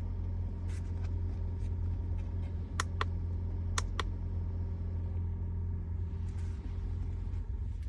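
Steady low rumble inside a car cabin, with two pairs of sharp clicks about a second apart around the middle.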